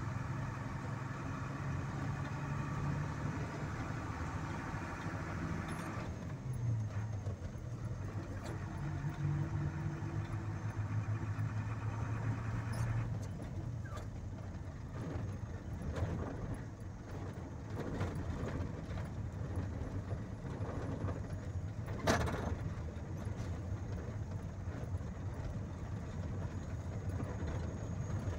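Vehicle engine and road noise heard from inside the cab while driving, the engine hum shifting in pitch a few times. Scattered rattles and knocks, with one sharp knock about two-thirds of the way through as the loudest moment.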